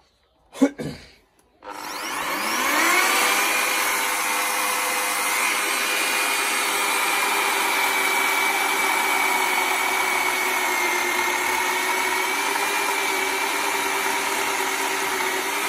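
Bosch GKE 35 BC electric chainsaw, with its side-mounted motor and 1.6 kW rating, starting on its soft start: the pitch rises over about a second, then the saw runs steadily under load through a log. It cuts smoothly, with no jerks or bogging down. A short loud sound comes about half a second in, before the saw starts.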